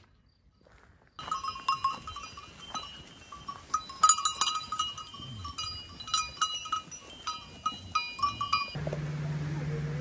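Animal bells on a flock of goats and sheep ringing and clanking irregularly as the animals feed, starting abruptly about a second in. Near the end the bells cut off and a steady low hum takes over.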